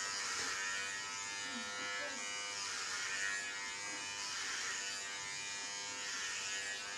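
Electric hair clippers buzzing steadily as they are run over a short buzzcut. The buzz swells and eases with each pass of the blade through the hair, about every two seconds.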